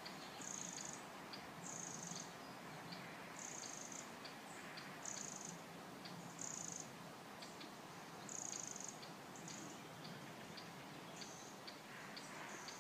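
Faint woodland ambience with an insect chirping: short high chirps every second or two, with small ticks between them, over a steady soft hiss and a faint low hum.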